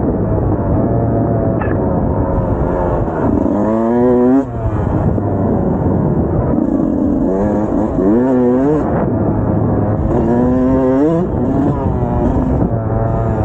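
Dirt bike engine being ridden on a motocross track: several times its pitch climbs steadily as the throttle opens and then drops away as it is rolled off, over a rough running rumble.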